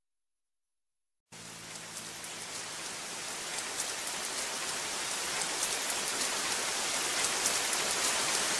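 Rain falling, a steady hiss with fine crisp drop ticks, starting suddenly about a second in and slowly growing louder.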